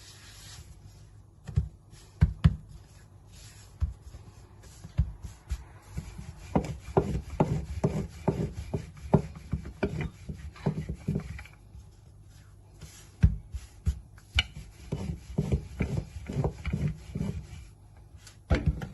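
Rolling pin rolling dough on a wooden board: rubbing with soft, quick knocks as the pin goes back and forth, in two spells of steady rolling, the first starting about a third of the way in and the second near the end.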